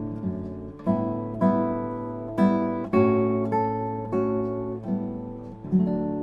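Background music of an acoustic guitar playing plucked chords, a new chord about every half second, each ringing and dying away.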